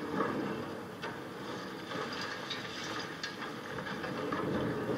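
High-reach demolition excavator's hydraulic crusher breaking up a concrete tower: a continuous clatter and crunch of concrete and falling debris, with scattered sharp knocks.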